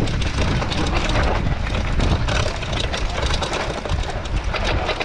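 Mountain bike riding down a rough dirt single-track trail: a steady clatter of the bike jolting over the ground with tyre noise and a low rumble.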